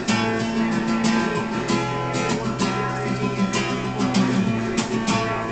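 Acoustic guitar strummed in a steady rhythm, played live between sung lines.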